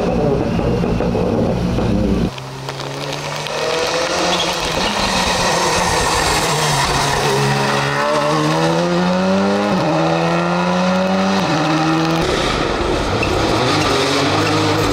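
Rally car engines on a special stage. A loud close pass cuts off a couple of seconds in. Then a car accelerates through the gears, its engine note climbing and dropping back at each upshift. Near the end the sound turns loud and rough again.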